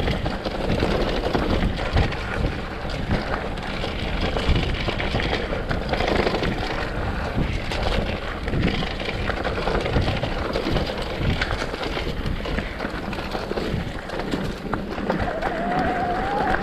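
Mountain bike descending a rough dirt trail: tyres rolling over ground and rocks, with constant rattling and knocking from the bike and wind on the microphone.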